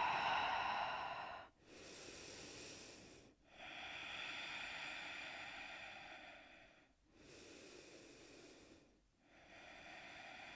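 A woman breathing slowly and audibly in and out while holding a yoga pose, five long breaths, the first the loudest.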